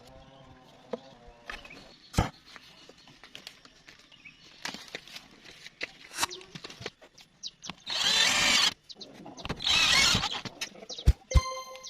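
Scattered clicks and knocks of tools being handled, then two short loud bursts of a power tool running, about a second and a half apart, with a brief high tone near the end.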